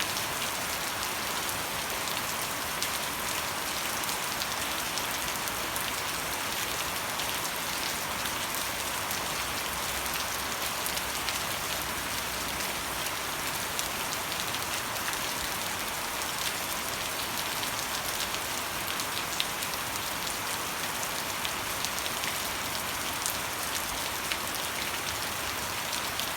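Steady rain falling, an even hiss of rain with many small individual drops ticking through it.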